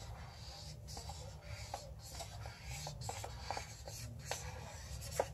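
Black marker drawing on paper: faint repeated scratching strokes with small ticks as the tip moves and lifts.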